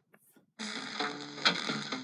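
FM broadcast audio from an Eton E10 radio's speaker mutes for about half a second as it switches to the next stored preset station, then the new station's programme comes in, music with a voice.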